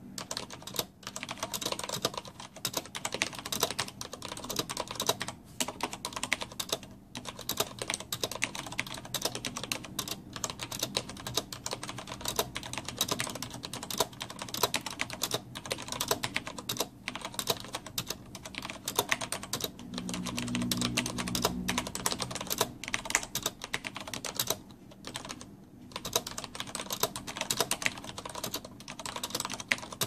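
Fast, continuous typing on a Roccat Ryos MK mechanical keyboard with Cherry MX Black linear switches: a dense clatter of keystrokes and keycaps bottoming out, with brief pauses about seven seconds in and again near twenty-five seconds.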